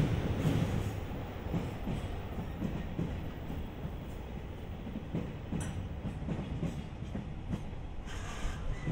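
JR Freight container flat wagons, mostly empty, rolling past over the rails: a steady rumble with irregular knocks and clanks as the wheels pass over the track.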